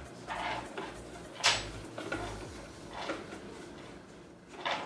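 Jute-wrapped cardboard scratching posts being handled and screwed by hand into a carpeted cat-tree platform: scattered rubbing and light knocks, with one sharper knock about a second and a half in.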